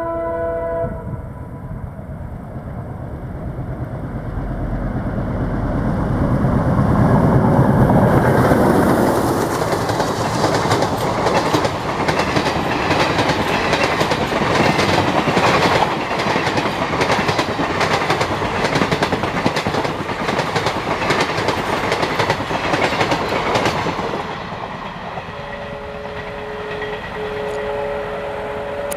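WDM-3D diesel locomotive (ALCO V16 engine) at speed: its horn cuts off about a second in, then the engine's deep rumble swells as it passes. A long rake of coaches follows with a rapid clickety-clack of wheels over rail joints, dropping away near the end, when a steady two-note tone sounds.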